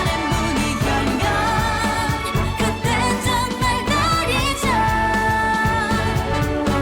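K-pop song playing: a sung melody with held, wavering notes over a steady beat.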